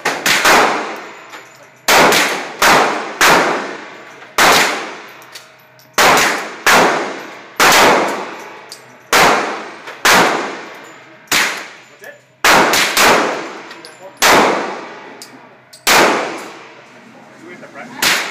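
Rifle fired one shot at a time, about sixteen sharp cracks at uneven spacing of one to two seconds, with a quick run of three near the middle. Each shot rings on in a long echo off the walls of an indoor range.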